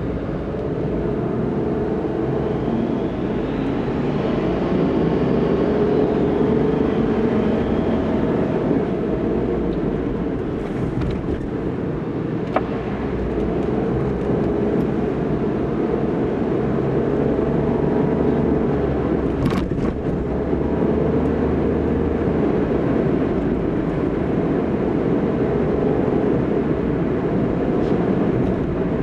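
Steady road and engine noise of a car driving in city traffic, heard from inside the cabin, with one faint click about halfway through.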